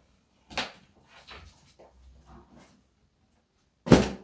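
Knocks from a wooden wardrobe cupboard being handled: a short knock just after the start, faint bumps and rustling, then a sharp bang near the end.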